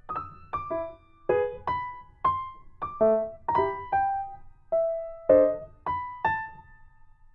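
Background piano music: single notes or chords struck about twice a second, each ringing out and fading.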